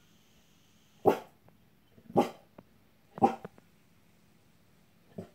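German shorthaired pointer barking: three loud single barks about a second apart, then a softer one near the end.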